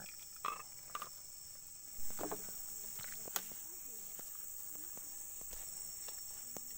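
Steady high-pitched chorus of insects, with a few faint clicks and knocks over it.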